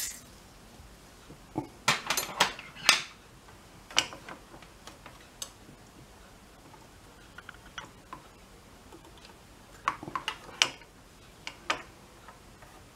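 Scattered small clicks and taps as an amplifier circuit board and a soldering iron are handled on a workbench, in a quick cluster about two seconds in and another around ten seconds.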